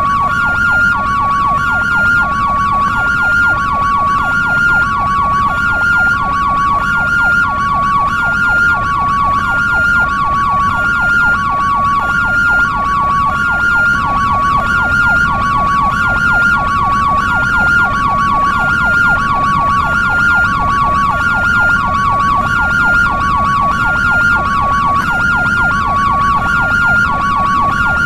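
European ambulance siren in hi-lo two-tone mode, a high and a low tone alternating steadily about every half second, with a fast yelp sweeping up and down underneath.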